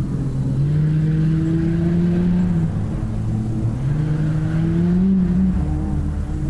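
Off-road racing buggy engine under hard acceleration, its pitch climbing twice: once from about half a second in, and again from about four seconds in. It eases back between the climbs, over a steady low rumble.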